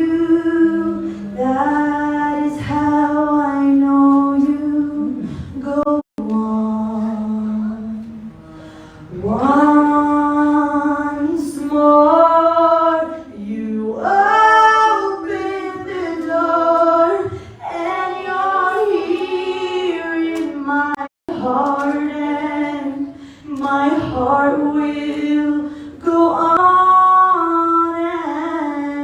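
A woman singing solo without accompaniment, holding long notes and wavering through ornamented runs. The sound cuts out abruptly for an instant twice, about six seconds in and again about twenty-one seconds in.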